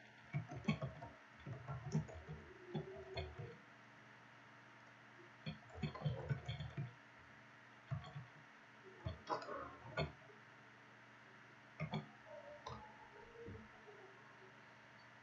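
Computer keyboard typing: irregular bursts of key clicks and thuds with short pauses between them, ending with a few lone keystrokes.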